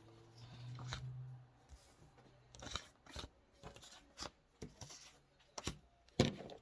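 Tarot cards being handled: a run of short, crisp card snaps, about one or two a second, the loudest near the end.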